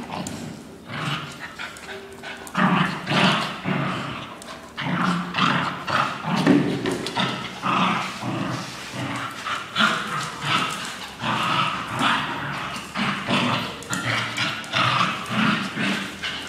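Two small dogs, a Shih Tzu and a mixed-breed dog, play-fighting, with a near-continuous run of short, uneven dog vocal sounds.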